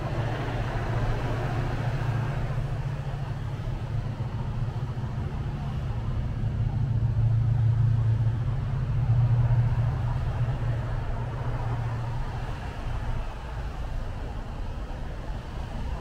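City road traffic on a rainy day: a low engine rumble from a passing vehicle swells over several seconds, is loudest around the middle and fades near the end, over a steady hiss of traffic and rain.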